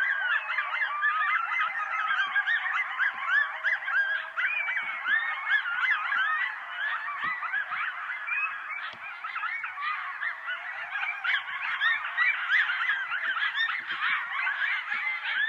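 A group of coyotes yipping and howling together: many overlapping, wavering high calls forming a continuous chorus.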